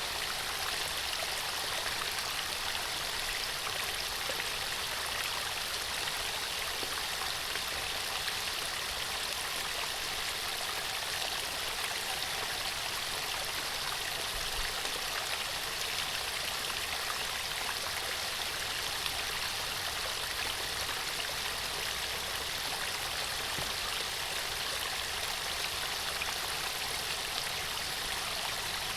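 Running water of a stream: a steady, even rush of flowing water.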